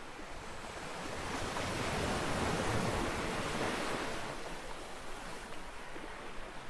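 Ocean waves rolling onto a beach: a wave's wash swells up about a second in, peaks around the middle, and then recedes.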